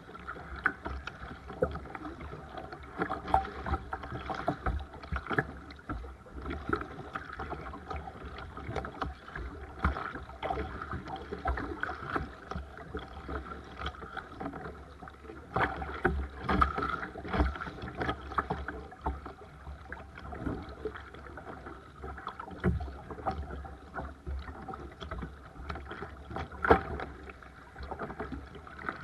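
Water splashing and lapping around a sea kayak under way, with irregular short splashes and knocks from the paddle strokes.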